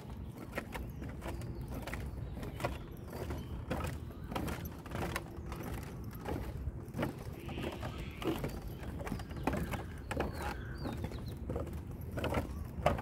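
Outdoor park ambience with irregular light clicks and knocks scattered throughout over a low steady background.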